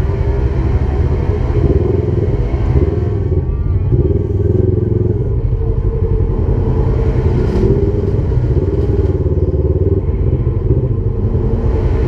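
Side-by-side UTV engine running hard under load, its exhaust note rising and falling as the throttle is worked.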